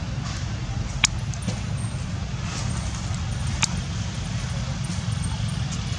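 Steady low outdoor rumble, with two sharp clicks: one about a second in and one a little past halfway.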